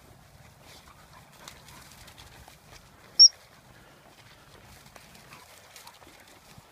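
A single short, high-pitched pip of a gundog whistle about three seconds in, far louder than anything else, over soft rustling and footsteps through rough grass.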